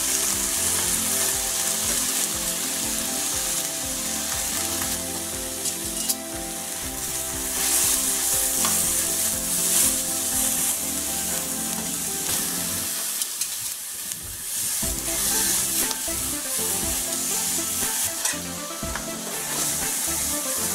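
A veal roast and onion wedges searing in a nonstick frying pan, a steady sizzle that thins briefly about two-thirds through. A few light clicks of metal tongs come as the roast is turned.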